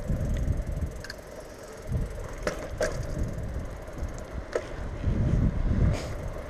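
Bicycle being ridden on a city street: uneven low rumbling of wind on the microphone over steady road noise, with four or five sharp clicks and rattles from the bike.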